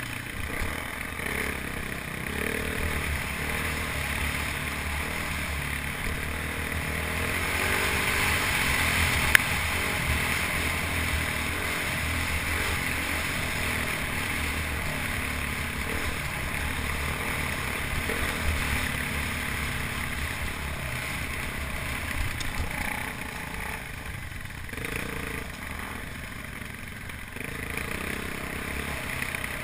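Single-cylinder dual-sport motorcycle engine running as the bike rides up a dirt trail, heard from the rider's helmet camera with a steady rush of wind and trail noise. There is one sharp knock about nine seconds in.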